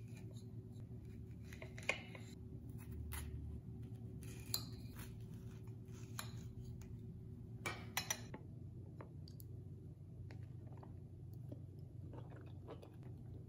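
A small kitchen knife cutting through a ripe stone fruit on a ceramic plate: soft wet slicing sounds, with the blade clicking sharply against the plate a few times, about 2 and 4.5 seconds in and twice near 8 seconds. A steady low hum runs underneath.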